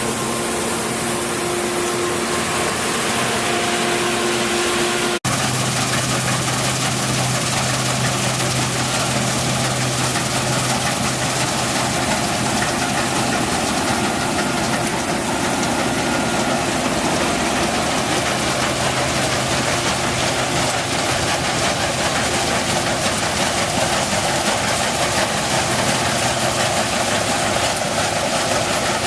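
New Holland CX8070 combine harvester running with a steady, loud mechanical drone. About five seconds in, the sound breaks off for an instant and resumes with a lower steady hum.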